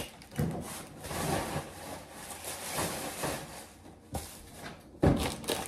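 Plastic packaging and wrapping rustling as it is handled and thrown away, with scattered knocks and a sharp thump about five seconds in.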